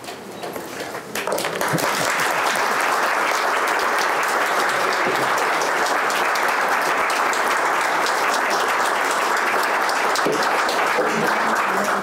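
Audience applauding. The clapping swells in about a second in, holds steady, then drops away near the end.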